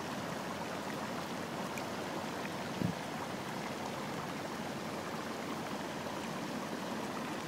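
Steady rushing noise, with one brief low thump about three seconds in.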